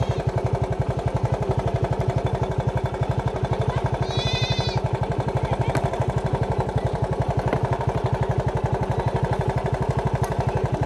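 Motorbike engine idling close by, a steady rapid putter of about ten beats a second. A short high-pitched sound comes about four seconds in.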